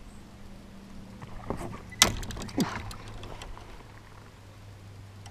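Clicks and knocks of gear being handled in a fishing kayak, with one sharp knock about two seconds in and another just after, over a steady low hum.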